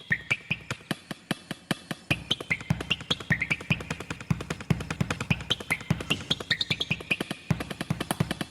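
Lively music: a rapid, steady run of percussive clicks and beats with short high melody notes over it.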